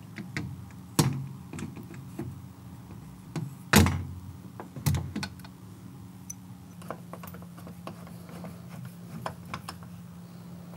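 Sharp clicks and knocks as a raised handle and latch are fitted onto an aluminum sliding glass door panel, the loudest about four seconds in, then lighter ticking near the end as a screwdriver starts on the handle screws.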